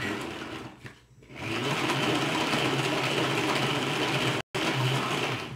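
Tupperware Speedy Chef hand-cranked mixer whirring steadily as its crank is turned fast, beating cake batter. It eases off about a second in, then runs strongly again, with a split-second gap near the end.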